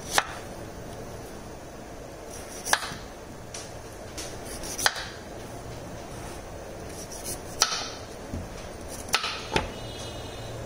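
Kitchen knife chopping carrots on a wooden cutting board: half a dozen sharp knocks a couple of seconds apart, the last two close together, over a steady background hiss.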